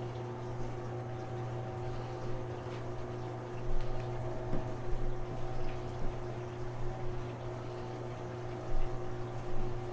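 A machine motor hums steadily while water runs into a basement floor drain being cleared of a backup. Irregular knocks and splashes come in from a little past halfway.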